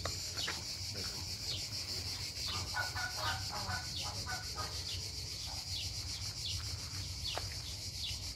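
Phone microphone rubbing and scraping against clothing as it is carried along while walking. Behind it runs a steady high hiss with a short falling chirp repeating a little under once a second, and a brief burst of chirping about three seconds in.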